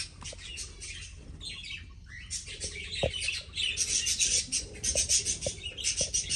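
A mixed flock of small aviary birds, budgerigars among them, chirping and chattering in quick high notes. The calls grow denser from about two and a half seconds in.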